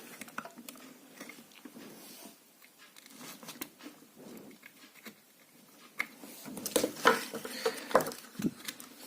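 Faint scraping and small clicks of tools working on a circuit board while a TDA2030 amplifier chip is being desoldered, with a few sharper clicks in the second half.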